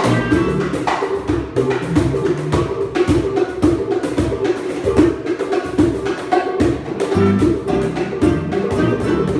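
Small live band playing a Cuban dance tune: cajón and percussion knocking out a steady beat under plucked bass notes and guitar, with a clarinet melody that drops out in the middle and comes back near the end.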